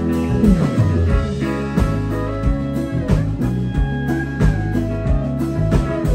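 Country-rock band playing live through a PA in an instrumental passage with no singing: electric guitars, bass and pedal steel guitar over a steady drum beat, with sliding, held notes.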